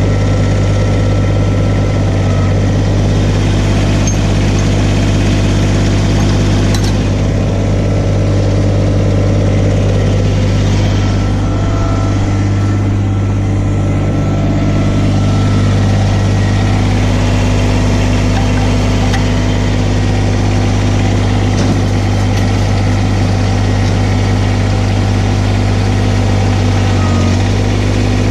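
Kubota BX1860 compact tractor's three-cylinder diesel engine idling steadily.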